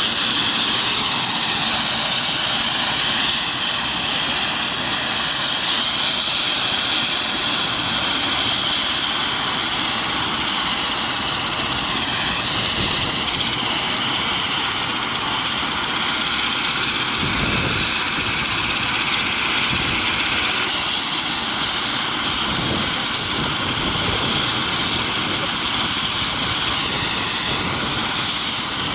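Turbine helicopter running on the ground before takeoff: a steady, loud high whine and rush of the engines and turning rotor. A few low gusts of wind hit the microphone about two-thirds of the way through.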